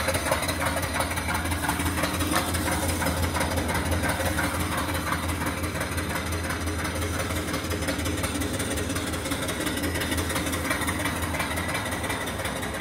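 Small single-cylinder steam engine (2.75-inch bore, 4-inch stroke, flyball governor) running steadily, its exhaust beats puffing up the boiler's smokestack in an even rhythm. It grows slightly fainter toward the end.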